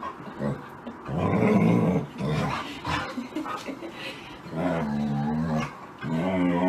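Siberian husky vocalizing in play, growly grumbling "talking" in several bouts, with a held, pitched howl-like moan about two-thirds through and another near the end.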